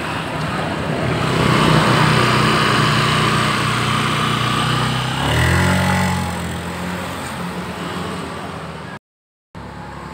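Honda Beat scooter's single-cylinder engine running, then about five seconds in it revs up and the scooter pulls away, the sound fading as it goes. This is a test ride after a CVT repair, and no rattle is heard at take-off.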